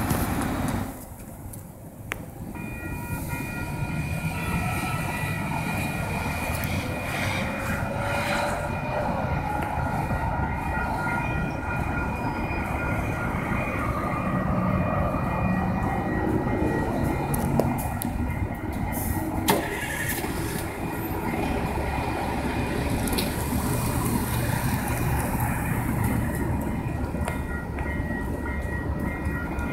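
A single-car light rail train passing through a road intersection among car traffic, with a steady rumble of wheels and road noise. Several steady high tones ring throughout, and there is a sharp click about twenty seconds in.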